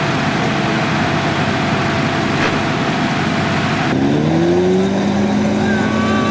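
Off-road 4x4 engine running hard under load. About four seconds in it gives way abruptly to an engine revving up and then holding a steady, higher note.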